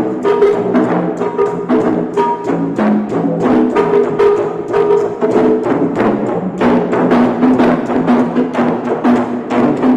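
Free-jazz jam of an electric bass guitar and percussion: a steady stream of quick, sharp wooden-sounding knocks over held notes.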